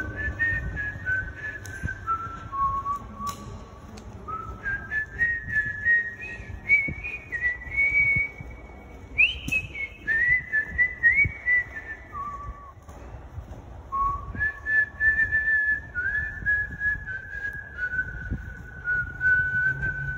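A person whistling a slow melody, one clear note after another, rising and then falling back, with a short pause about two-thirds of the way through. A low rumble runs underneath.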